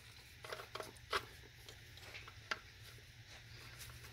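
A few faint, scattered clicks and light knocks of small parts being handled while fitting a new engine oil cooler and its hose, over a faint steady low hum.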